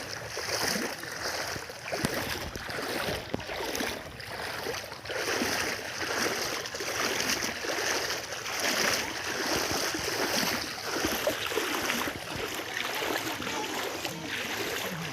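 Floodwater splashing and sloshing in repeated irregular surges, as someone wades through knee-deep water over a flooded road.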